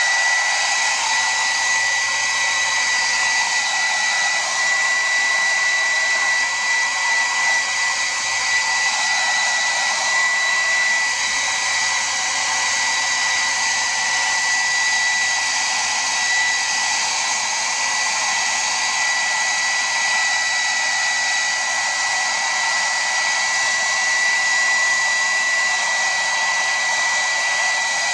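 Small handheld hairdryer running steadily: a rush of air with a constant high whine from its fan motor.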